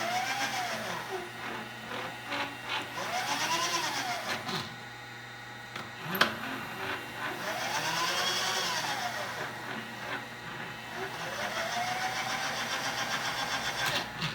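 Servo 150 power feed motor on a Bridgeport milling machine table whining as it runs, its pitch rising and then falling four times as the feed speeds up and slows down. A sharp click comes about six seconds in.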